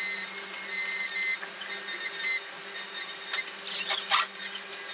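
Xhorse Dolphin XP005 key cutting machine cutting a key blade: a steady motor hum with a high whine from the cutter that comes and goes in short bouts, with a few light clicks.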